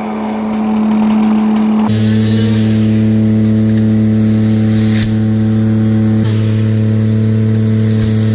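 A large engine running at a steady speed: a constant deep hum with a higher steady tone above it, its low hum growing louder about two seconds in.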